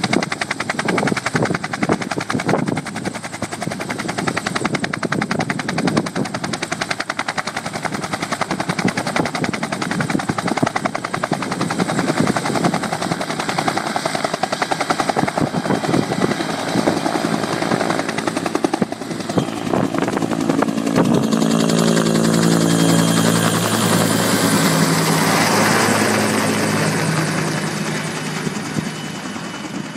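Two-bladed Huey-type helicopter, its main rotor beating rapidly as it lifts off and hovers. It then flies overhead: the rotor beat and turbine whine grow loud, drop in pitch as it passes, and fade near the end.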